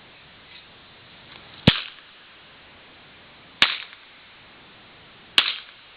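Three revolver shots fired about two seconds apart, each a sharp crack with a short echo.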